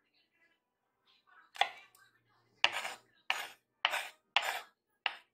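Six sharp knocks of a kitchen utensil on a hard surface: one, a short pause, then five at an even pace of a little under two a second.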